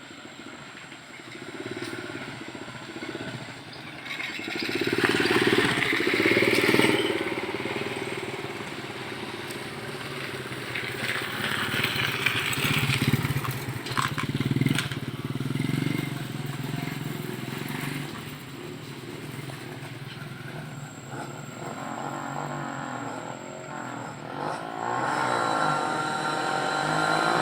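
Motorcycle engine running, swelling louder and fading away several times.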